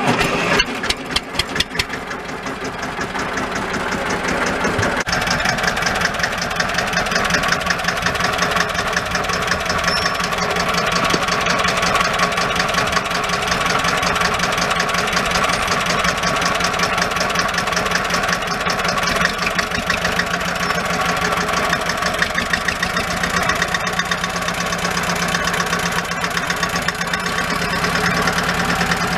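1964 Deutz D15's single-cylinder air-cooled diesel engine just after starting: uneven firing for the first couple of seconds, then it picks up and settles into steady running with a regular, evenly spaced firing beat.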